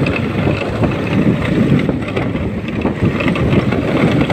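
Wind buffeting the microphone of a moving motorcycle, with a small motorcycle engine running steadily underneath.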